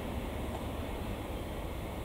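Diesel shunting locomotive running at low speed as it slowly moves a string of freight wagons: a steady, low engine sound with no sudden noises.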